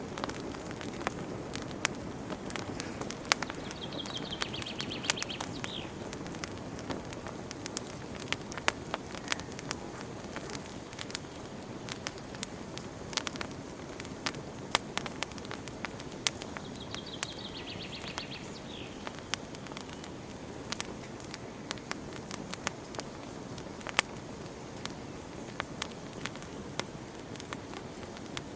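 Campfire burning and crackling: irregular sharp pops and snaps over a steady low hiss of flames. Twice a bird gives a short rapid trill, about four seconds in and again near seventeen seconds.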